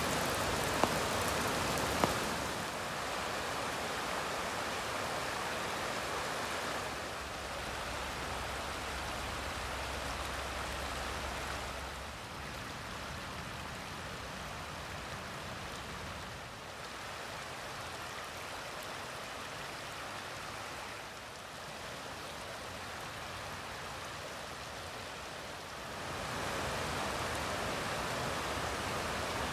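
Rain falling in a forest: an even hiss that steps up and down in level every few seconds. A couple of sharp drip-like clicks sound in the first two seconds, and a faint low hum runs for a few seconds about a quarter of the way through.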